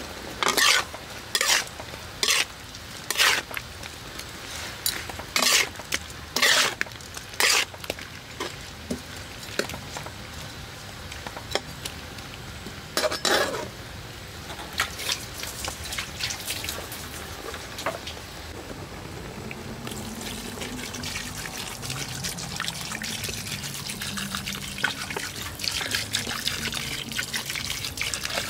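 Metal spatula scraping and knocking against a wok while meat is stir-fried, in a run of sharp strokes over the first eight seconds and once more about thirteen seconds in. From about twenty seconds a steadier hiss of liquid builds as water is poured into the wok near the end.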